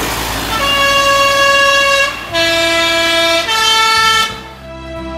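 Swiss PostBus three-tone horn sounding its tune once: three long notes, high, then low, then middle, each about a second long.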